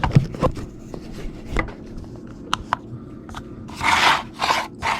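Hands handling small plastic parts of a 1:24-scale RC truck wheel: scattered light clicks and taps, then two short scraping rustles about four seconds in.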